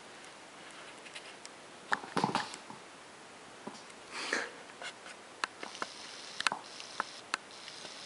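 Bengal kitten pouncing after a string toy on a wooden floor: paws and claws scrabble and tap on the boards in a quick flurry about two seconds in, a scratchy swish follows, then scattered sharp taps.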